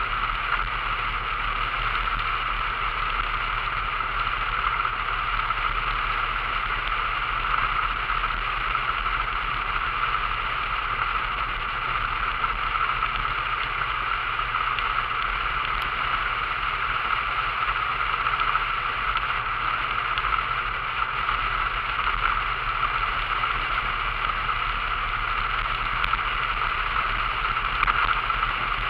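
Vintage Talbot car driving steadily at road speed: a constant rush of wind and road noise with a low hum underneath.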